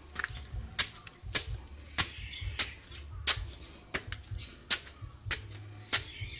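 Footsteps of a person walking, sharp regular steps about every 0.6 seconds, over a low rumble of wind on the phone's microphone.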